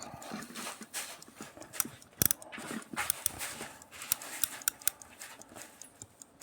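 Slava mechanical alarm clock ticking, mixed with uneven clicks and knocks as the clock is handled; the strongest knock comes just past two seconds in.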